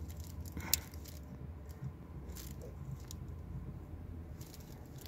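A few faint clicks and small metal taps as the button housing and its metal retaining clip are handled, over a steady low hum from the idling engine.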